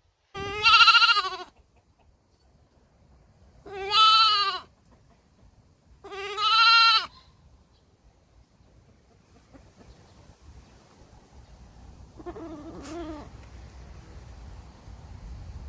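Baby goat bleating: three loud, wavering bleats of about a second each, a few seconds apart, then a fainter bleat near the end over a low background rumble.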